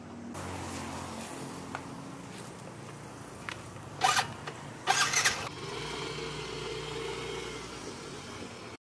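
Motor scooter engine running, with two short loud noises about four and five seconds in; after them the engine holds a higher, steady note until the sound cuts off suddenly.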